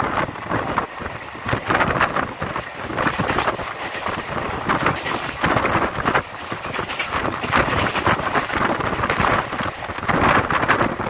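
Passenger train coach running at speed, with wind rushing in at an open barred window and buffeting the microphone in uneven gusts over the running noise of the wheels on the rails.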